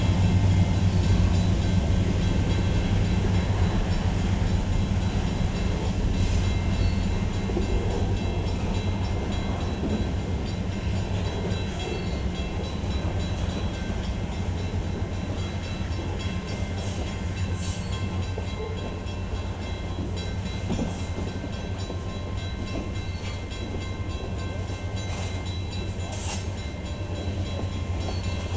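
Freight train cars (covered hoppers, boxcars and tank cars) rolling past at close range: a steady low rumble of steel wheels on rail, slowly easing in loudness, with a few short sharp high sounds from the wheels and couplers.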